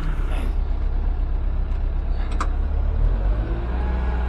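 Wheel loader's diesel engine running, a steady low rumble heard from inside the cab, with a single sharp click about halfway through.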